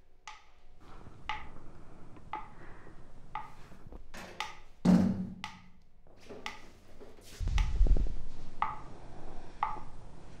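Metronome ticking steadily at about one beat a second, with a heavier thump about five seconds in and a low rumble during the last few seconds.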